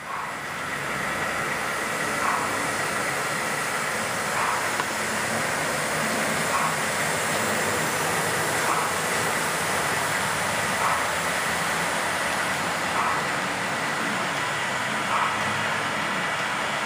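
Model freight train running along the layout's track: a steady rushing hum with a faint click about every two seconds.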